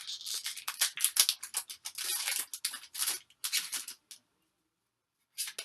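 The foil wrapper of a Pokémon TCG booster pack being torn open: a dense run of crackling tears and crinkles for about four seconds, then one short crinkle near the end.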